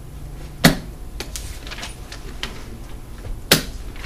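Two sharp clicks about three seconds apart, with lighter ticks between them, from a dry-erase marker handled and tapped at a whiteboard.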